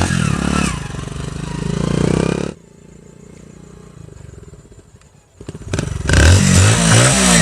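Hero motorcycle engine revving through an exhaust silencer fitted with a plastic Pepsi bottle and wire, meant to give it a KTM-like sound. The engine sound cuts off abruptly about two and a half seconds in, leaving a much quieter stretch, then comes back loud near the end with its pitch rising and falling as it is revved.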